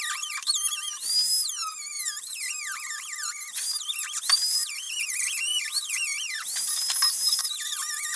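High-pitched whine of a rotary tool's cut-off wheel cutting through car-body sheet metal. The pitch wavers constantly as the wheel bites and sweeps up sharply a few times.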